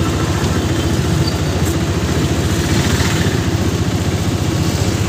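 Auto-rickshaw's small single-cylinder engine running steadily with a fast, even pulsing, heard from inside the open passenger cabin.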